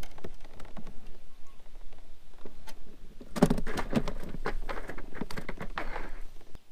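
Irregular knocks, taps and rattles from handling in a plastic fishing kayak after a small crappie is landed, busiest from about three and a half seconds in.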